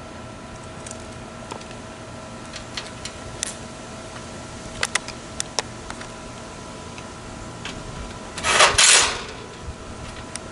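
Steady machine hum with scattered clicks and knocks from hand tools and panel work, and one loud hiss lasting under a second near the end.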